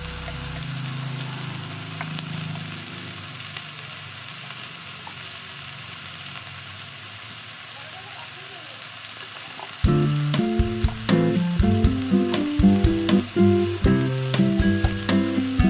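Chicken pieces sizzling as they fry in oil in a wok, a steady hiss. About ten seconds in, louder background music with a run of changing notes comes in over the sizzle.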